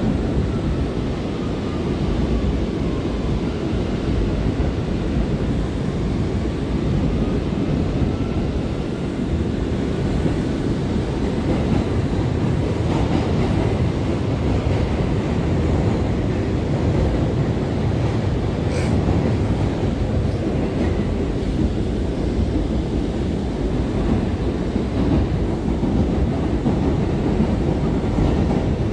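Steady rumble of an R179 subway car running along the rails, heard from inside the car. One sharp click sounds about two-thirds of the way through.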